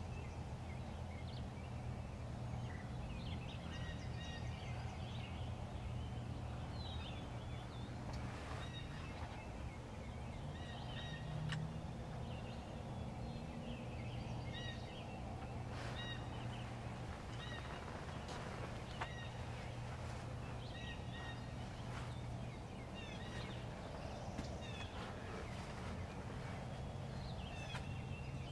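Wild turkey gobbling several times, over a steady low rumble.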